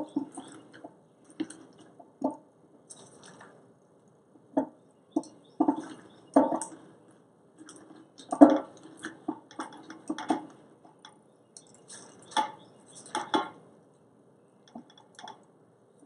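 Wet, salted napa cabbage, daikon and carrots squelching and crunching as a hand presses them down hard into a glass jar, tamping the kimchi to force out air bubbles. The sounds come in short irregular bursts with brief pauses between presses.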